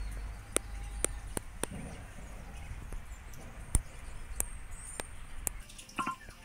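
About eight sharp clicks at uneven intervals over a low rumble that stops near the end.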